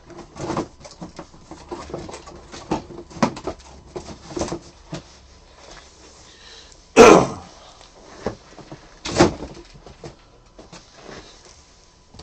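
Cardboard card boxes being handled and set down on a table: scattered light knocks and rustles. Two louder short sounds stand out, the loudest about seven seconds in and another about two seconds after it.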